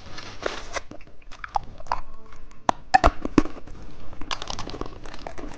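Crisp crunching with a scatter of sharp clicks close to the microphone, as of candy being bitten into.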